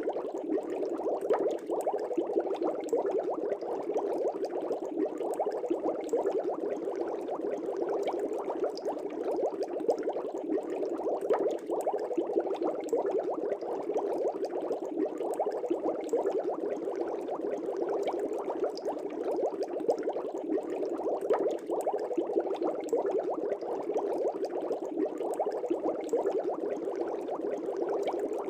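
Aquarium air bubbles rising and breaking at the water surface in a steady, dense bubbling.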